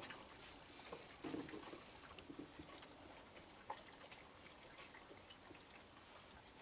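Faint, irregular small clicks and crunches of several raccoons eating kibble on a wooden deck.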